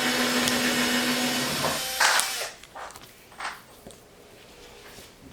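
A small electric motor runs with a steady hum and hiss for about two and a half seconds, then stops, followed by a few light clicks and knocks.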